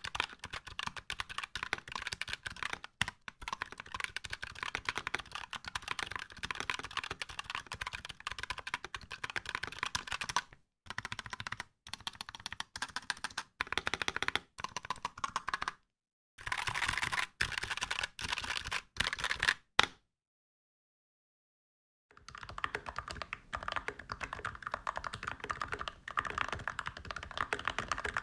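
Fast typing on a mechanical keyboard with KK Light Wave V2 linear switches (factory-lubed) and MT3 ABS keycaps, a dense run of key clacks broken into shorter runs with pauses in the middle, with a few louder strokes just before a silent break. After the break, typing resumes on the same switches now lubed with 106 oil, recorded through an iPhone 8's microphone.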